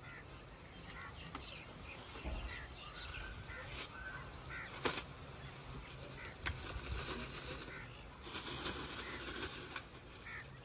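Birds give short calls at intervals, with a few sharp knocks and clicks as a wire basket and crates are handled.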